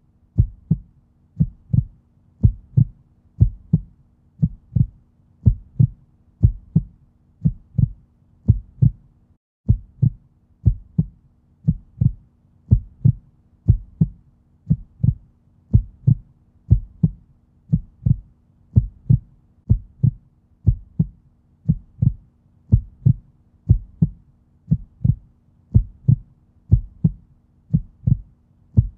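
Heartbeat sound effect: steady, regular thumps at about 85 beats a minute over a faint steady hum, which drops out briefly about nine seconds in.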